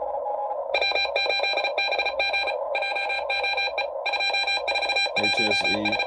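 Morse code (CW) on the 40-metre band coming through a Xiegu G90 HF transceiver's speaker. It starts as steady receiver hiss with a faint keyed tone, then about a second in a much louder signal keys on and off in dots and dashes.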